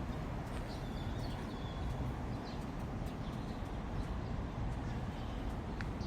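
Outdoor background ambience: a steady low rumble with a few faint, short bird chirps in the first half.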